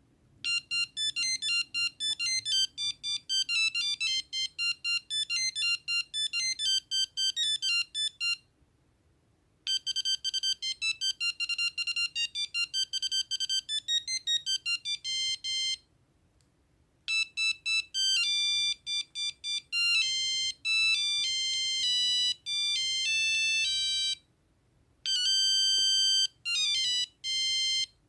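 Ericsson A2218z mobile phone playing its ringtones: four beeping melodies, one note at a time, one after another with a pause of about a second between them. The first two are fast runs of short notes; the later two have longer held notes.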